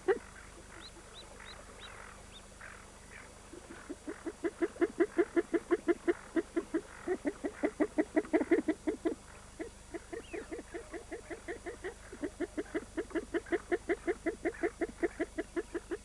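Female Barrow's goldeneye calling her ducklings to follow: a long run of short, low, even calls at about five a second, with a brief pause partway through. High, thin peeps from the ducklings come in the first few seconds.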